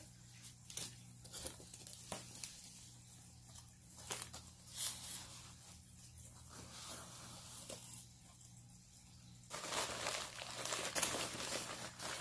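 Packing material in a shipping box being handled and rustled: scattered light taps and rustles, then a louder stretch of dense crinkling from about nine and a half seconds in.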